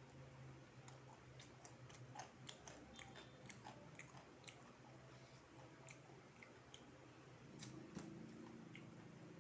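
Faint chewing and biting of crispy battered fried chicken, close to the mouth: small irregular crunches and mouth clicks.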